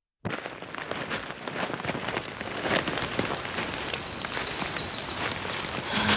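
Forest ambience sound effect: a dense, crackling rustle like rain or brush underfoot, with a short high bird trill about four seconds in.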